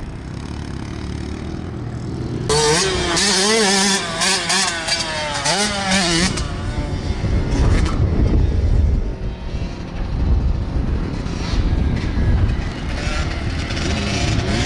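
Small dirt bike engines running on a motocross track. From about two seconds in to about six seconds in, one bike's engine revs hard, its pitch rising and falling quickly as the throttle is worked. After that comes a lower, rougher engine sound.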